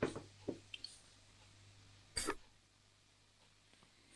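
A small digital camera set down on a wooden tabletop with a knock, followed by a couple of faint handling clicks. About two seconds in comes a short throat sound.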